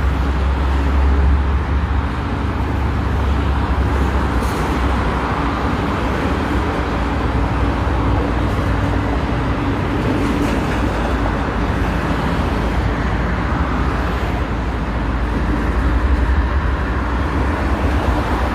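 Steady low rumble of a diesel freight locomotive, mixed with road traffic noise.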